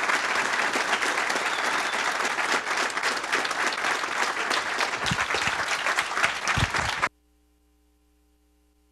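Audience applauding: dense, steady clapping that cuts off suddenly about seven seconds in.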